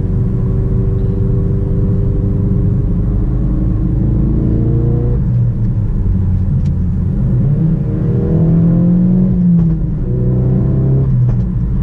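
Ford Focus RS Mk3's 2.3-litre turbocharged four-cylinder heard from inside the cabin, pulling hard through the gears. The engine note climbs in pitch, drops at an upshift about five seconds in, climbs louder again and drops at shifts near ten and eleven seconds, with a short crack from the exhaust around the shifts.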